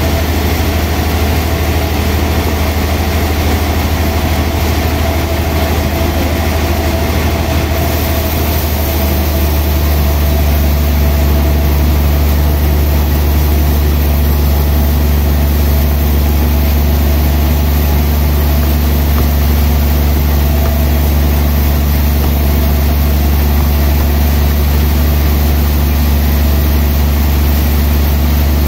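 Large log band sawmill running with a loud, steady low hum; about ten seconds in the hum grows stronger and steadier.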